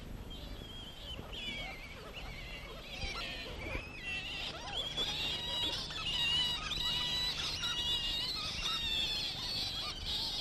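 A roosting colony of flying foxes (fruit bats) squeaking and chattering, many high calls overlapping; the calling grows denser and louder about four seconds in.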